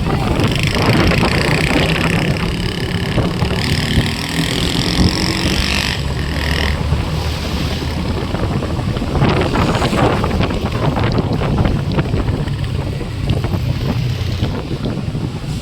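Motorcycle on the move: the engine runs steadily under heavy wind buffeting on the microphone. A steady high hiss rides over it for roughly the first six seconds, then stops.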